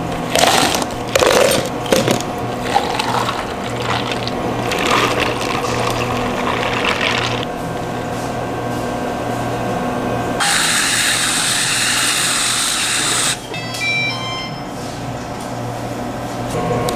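Iced matcha milk tea being prepared: sharp clicks of plastic cups set on the counter, then liquid being poured. Later comes a steady hiss of about three seconds that starts and stops abruptly.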